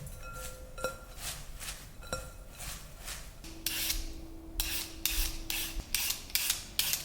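Rhythmic rasping strokes of something being rubbed back and forth by hand, growing louder about halfway through and running at about three strokes a second.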